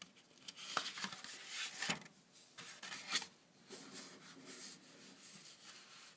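Paper rustling and rubbing as a hand closes a thin paper instruction booklet and slides over its cover, with a few sharp paper snaps in the first three seconds.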